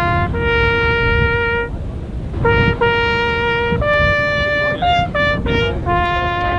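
Solo trumpet playing a slow melody of long held notes, one note at a time, over a low rumble.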